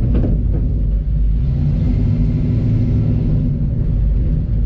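Chevrolet 350 V8 with headers and Flowmaster-style dual exhaust, running steadily at low speed, heard from inside the cab of a 1970 Chevrolet C-10 pickup.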